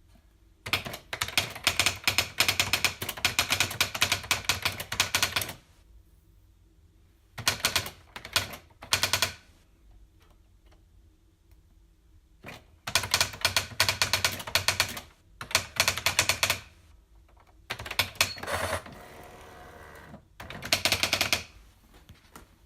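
Typewriter keys being struck in rapid runs of clicks, several bursts of typing separated by short pauses, with a softer, smoother noise between two bursts near the end.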